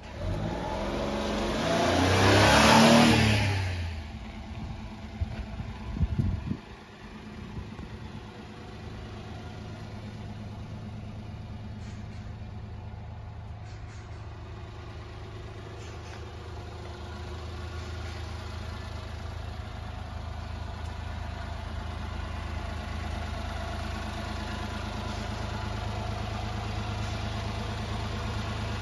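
1996 Honda Acty kei truck pulling up with its small three-cylinder engine revving and then easing off about four seconds in, followed by a few knocks, then the engine idling steadily. The idle grows louder near the end as the tailpipe comes close.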